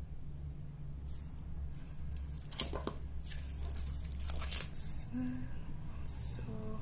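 Clear plastic wrapping around a paper pad rustling and crinkling as it is handled, in short irregular bursts, with one sharp tick about two and a half seconds in, over a steady low hum.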